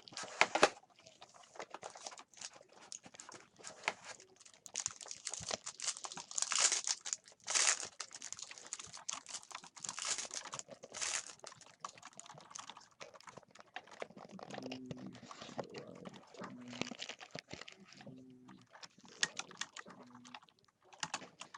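Trading card packs being handled: foil wrappers crinkling and rustling, with quick irregular clicks and slides as cards are flipped through.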